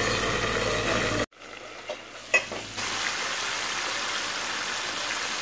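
Flour-coated chicken drumsticks deep-frying in hot oil in an iron wok, a steady sizzle of bubbling oil. The sound drops out abruptly about a second in, a couple of light clicks follow, and the steady sizzle comes back.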